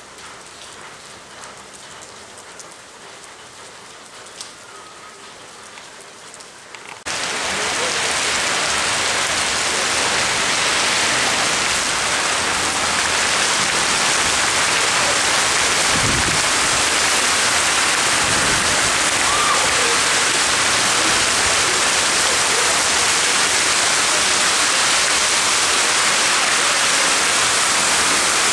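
Rain falling steadily but faintly, then about seven seconds in an abrupt jump to a much louder, dense downpour of heavy wind-driven tropical rain that keeps up steadily.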